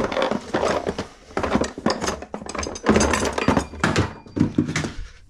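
Metal hand tools and small metal parts clinking and clattering in a run of irregular knocks and clinks.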